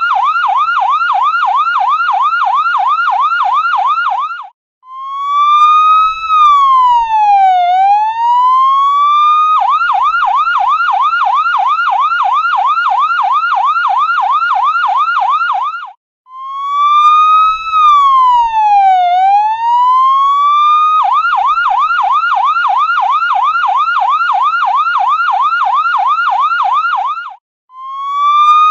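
Electronic ambulance siren cycling between a fast yelp, about four or five pitch sweeps a second, and a slow wail that rises and falls over about five seconds. The pattern repeats twice, with a brief cut-out between sections.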